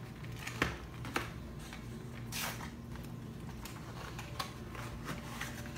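Small toy packet being opened by hand: a few light clicks and taps, and a short crinkle of the wrapper about two and a half seconds in.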